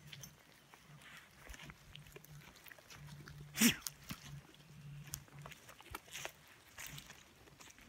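Footsteps crunching through dry leaves and dead grass, irregular and uneven. One short, louder sharp sound stands out about three and a half seconds in.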